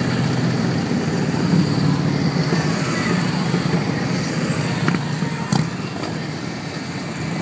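A procession of motorcycles, largely Harley-Davidson V-twin cruisers and touring bikes, passing one after another at steady cruising speed, their engines running in a continuous low pulsing drone.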